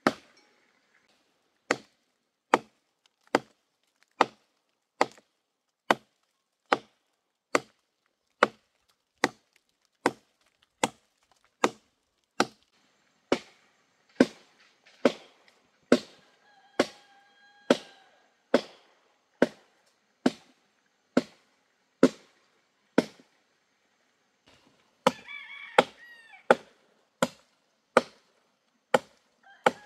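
Machete chopping into a fallen tree trunk, steady sharp blows a little more than one a second, with a brief pause about three-quarters of the way through.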